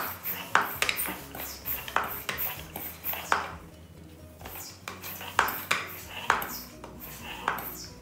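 SuperCycle floor pump being worked fast to inflate an empty bicycle tyre: a quick run of short strokes, about two to three a second, with a break of about a second near the middle.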